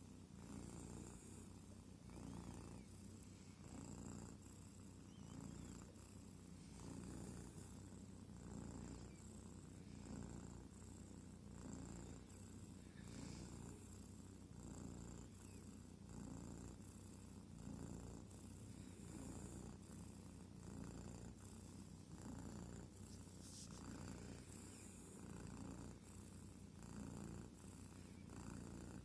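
Kitten purring quietly and steadily, swelling and fading in an even rhythm about once a second.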